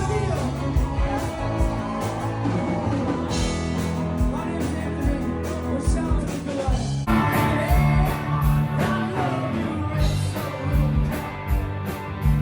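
Rock music with a singer and guitar over a steady beat, changing abruptly about seven seconds in.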